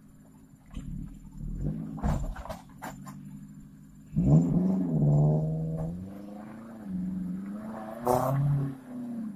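Car engine revving up and down under load on a muddy, rutted track, the revs rising sharply about four seconds in and again near the end. A few sharp knocks sound in the first three seconds.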